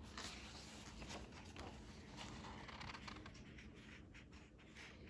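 Faint rustle of paper as the pages of a picture book are turned and handled.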